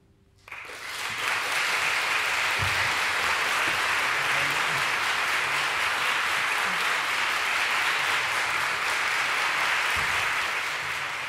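Audience applauding in a concert hall. The clapping starts about half a second in, builds to full strength within a second, holds steady, and begins to fade near the end.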